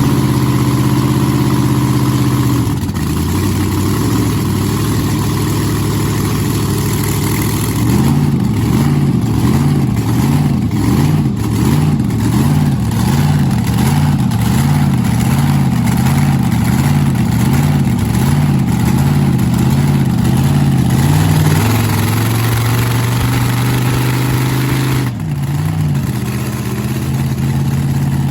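Twin supercharged alcohol-burning drag-racing V8s idling after fire-up. Their pitch swells and sags about once a second through the middle, then settles to a steady idle.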